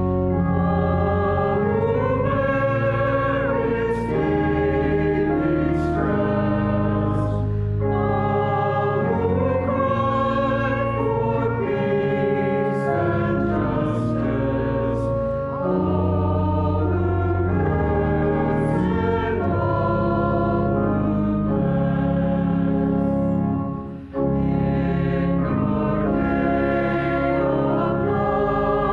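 Church congregation singing a hymn, with sustained notes that change every second or two and a brief break about 24 seconds in.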